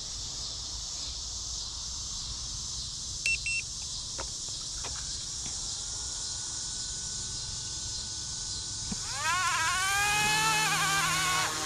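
Electric RC helicopter's motor and rotor whine, faint at first, then rising sharply in pitch and getting much louder about nine seconds in. A steady high hiss runs underneath, and two short beeps sound about three seconds in.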